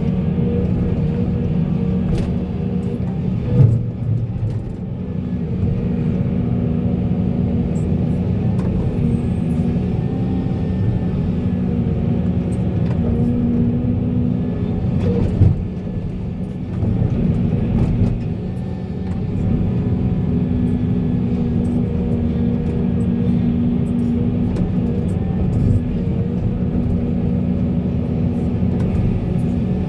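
Heavy diesel engine of a Volvo excavator running steadily under working load, with two sharp knocks, one about four seconds in and one about fifteen seconds in.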